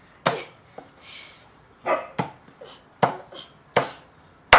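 A heavy cleaver chopping through a pig carcass's ribs and backbone into the board beneath: about six sharp blows at an uneven pace, the hardest one near the end.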